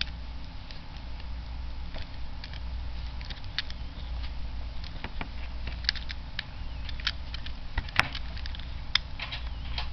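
Plastic shrink wrap being picked at and torn off a trading card deck box: irregular crinkling and small clicks, with one sharper click about eight seconds in.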